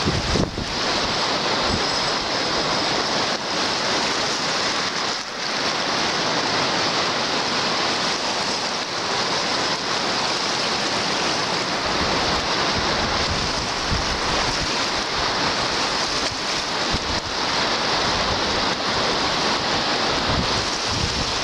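Small lake waves breaking and washing up a gravel beach, with steady wind noise on the microphone.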